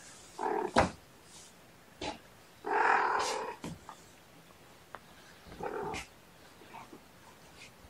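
A cat growling in three short bouts, the longest and loudest about three seconds in, with a sharp click about a second in.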